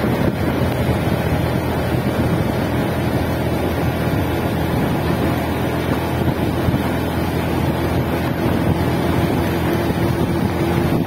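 Motorcycle engine running steadily at cruising speed, its drone mixed with wind rushing over the microphone.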